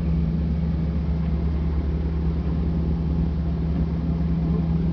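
Steady low engine drone with no change in pitch, as heard from inside an aircraft cockpit.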